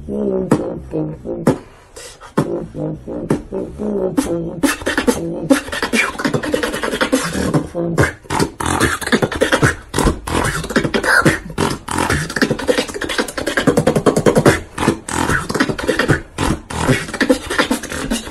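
Solo beatboxing: a pitched, hummed bass line over clicks for the first few seconds, then from about four seconds in a fast, dense beat of mouth-made kicks, snares and hissing hi-hats.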